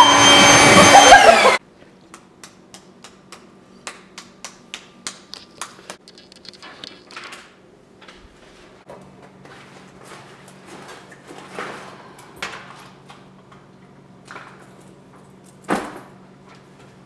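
A very loud, harsh blast of sound for the first second and a half, cut off suddenly. After it come quiet kitchen handling noises: a run of light clicks and taps, a low steady hum from about nine seconds in, and a sharp knock near the end.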